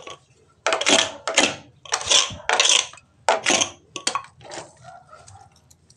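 Trowel scraping through a cement mix: a run of scraping strokes, about two a second, that die away after about four and a half seconds.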